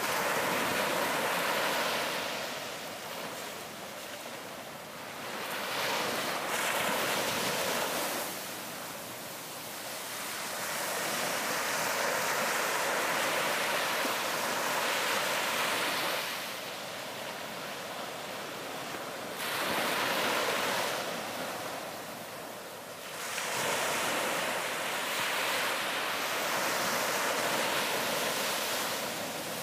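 Ocean waves breaking on a beach, the surf swelling and washing back in slow surges every few seconds.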